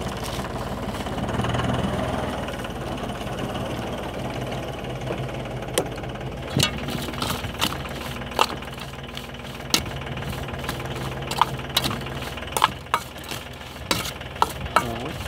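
Metal spoon clinking and scraping against a stainless steel bowl as a salad is tossed, with many sharp clinks from about six seconds in. Under it is the steady low hum of an idling engine.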